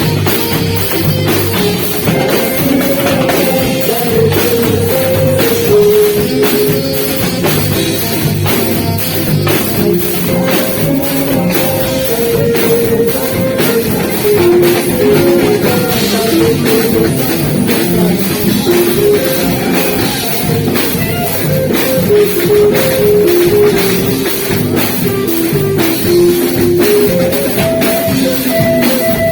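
Live band playing Beiradão, the Amazonian dance music with a lead saxophone: drum kit and guitar under a saxophone melody.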